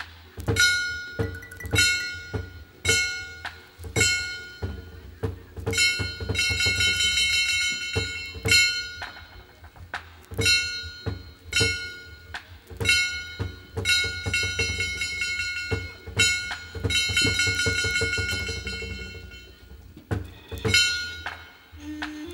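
Percussion from a Khmer Bassac opera ensemble: loud drum strikes come about twice a second, each with ringing struck-metal percussion, and denser rolls fill passages in the middle. Just before the end a held melodic note enters.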